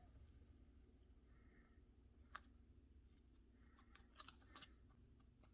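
Near silence with faint taps and clicks from handling paper and craft supplies: one sharper click about two and a half seconds in, then a short cluster of small clicks near the four-second mark.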